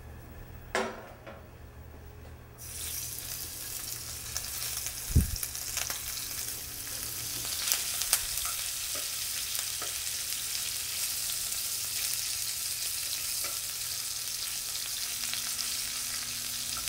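A knock about a second in. Then a sudden start of steady sizzling as pork rolls wrapped around bean sprouts go into hot oil in a nonstick frying pan, with occasional clicks of a metal utensil against the pan.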